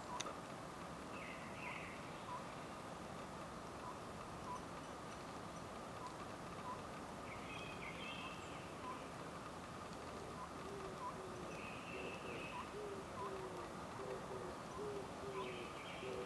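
Oriental scops owl (Otus sunia) hooting, short notes repeated every second or two, with other birds chirping now and then. From about ten seconds in, a quicker series of lower notes joins in.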